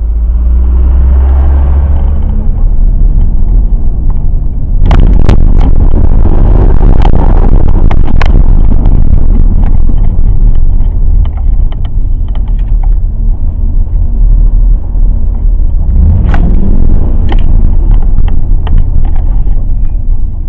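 Mercedes CLK 63 AMG's 6.2-litre V8 running with a heavy low rumble, with a brief rise and fall in pitch about sixteen seconds in. Sharp knocks come in clusters about five to eight seconds in and again around sixteen seconds. The car is logging random misfires that the mechanic puts down to a failing fuel pump.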